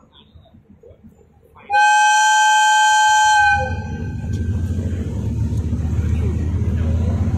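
HID-class diesel locomotive sounds one long, steady horn blast of nearly two seconds, starting about two seconds in. As the horn stops, its diesel engine throttles up into a low, throbbing run that grows louder as the express train starts to pull out.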